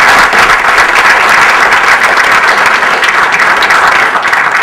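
Audience and panel applauding: many hands clapping in a steady, dense patter.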